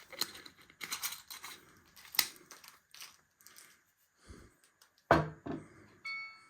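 Kitchen handling noise: rustling, tearing and clicking, then a knock about five seconds in, followed by a short electronic beep.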